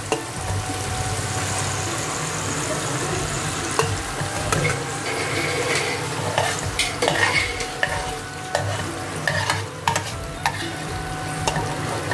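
Onion and tomato sizzling in hot oil in a steel pot, with a metal slotted spoon scraping and clicking against the pan as they are scooped out. The clicks come more often in the second half.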